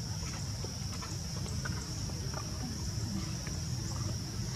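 Outdoor ambience: a steady high-pitched drone over a constant low rumble, with faint scattered clicks.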